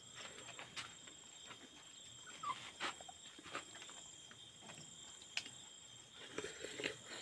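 A man eating rice with his fingers, heard close: chewing and lip smacks with scattered small clicks, and a denser run of mouth sounds near the end as he takes another handful.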